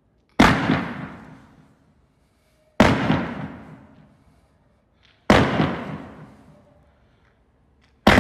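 A 1.2-inch 60-shot firework cake firing single shots about every two and a half seconds. Four sharp bangs, each fading away over a second or two, with quiet between them.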